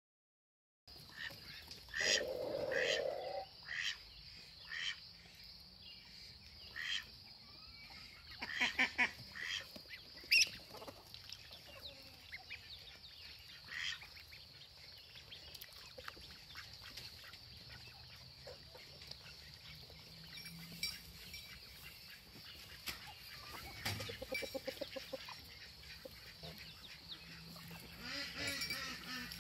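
Call ducks and a domestic goose calling: short quacks about once a second through the first seven seconds and a burst of them around nine seconds, with a longer, lower honk about two seconds in. A quieter stretch follows, with a few calls again near the end.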